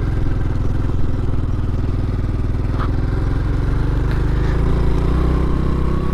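Honda Pop 110i's small single-cylinder four-stroke engine pulling steadily up a steep loose-dirt climb, its note shifting about four and a half seconds in.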